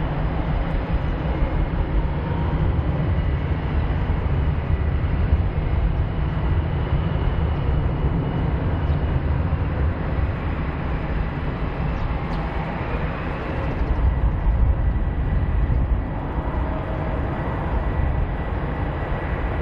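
F/A-18E Super Hornet twin F414 turbofan jet engines running at taxi power: a steady low rumble with a faint high whine.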